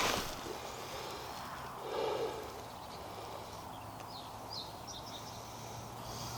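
Quiet outdoor background with a few short, faint bird chirps between about four and five and a half seconds in.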